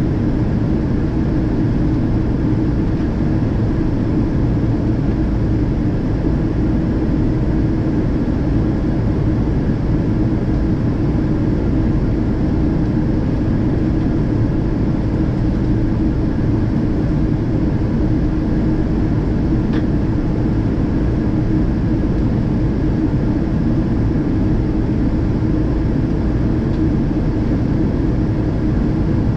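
Steady cabin noise of a Boeing 777-200ER in flight during descent: the drone of its Rolls-Royce Trent 892 engines and air rushing past the fuselage, with a steady low hum and no change throughout.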